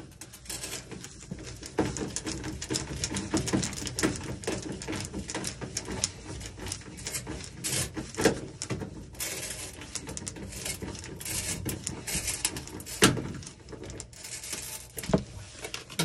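Hand screwdriver driving screws into a washing machine's sheet-metal cabinet: a run of irregular small clicks, scrapes and knocks of the bit and screw against the metal, with a louder knock about thirteen seconds in.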